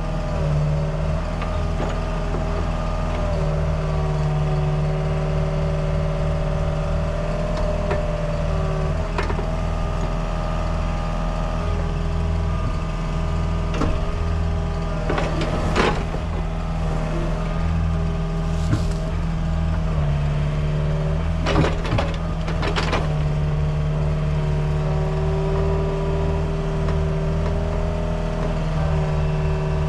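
Diesel engine of heavy earthmoving equipment running steadily, its pitch stepping up and down as the throttle or load changes. Several sharp metallic knocks come about halfway through.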